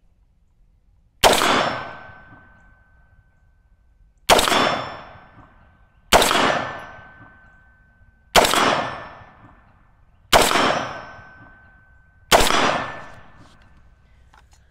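Radical Firearms FR16 AR-15 rifle firing six single semi-automatic shots, about two seconds apart, each followed by a short ringing tail.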